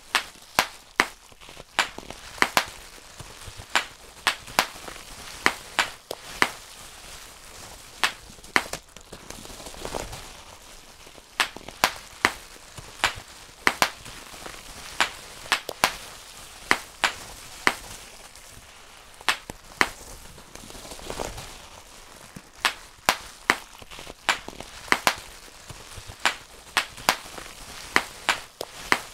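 Bubble wrap being popped by hand: sharp single pops, irregular, one to several a second, sometimes in quick runs, over a faint crinkle of the plastic sheet.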